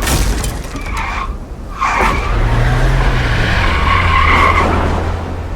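Car tyres squealing and skidding in long screeches, broken briefly about a second and a half in, with an engine droning low underneath from about halfway through.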